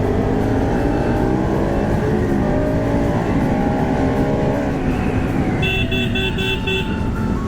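Motorcycle engine running on the move, its pitch rising and falling, under heavy wind rumble on the microphone. A little under six seconds in, a horn gives a quick string of about five short beeps.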